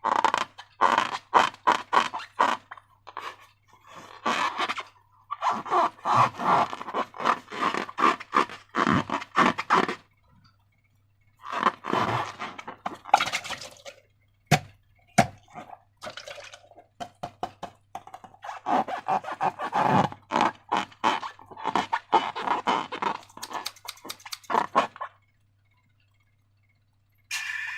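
Slime being squished and worked by hand: runs of sticky, wet crackling and popping clicks in bursts of a few seconds, with short pauses between.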